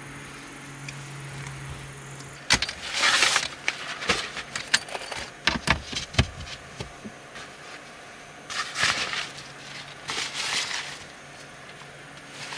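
Packaging being handled: a cardboard box and a fabric drawstring bag shifted and opened, giving several bursts of rustling with a run of sharp knocks and clicks between them. A low steady hum stops about two and a half seconds in.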